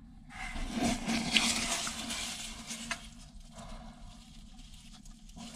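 A hand digging into wet packed salt in a plastic bucket and pulling out a salt-cured bluegill: a rustling, gritty scraping with a few sharp clicks, loudest in the first couple of seconds and then quieter.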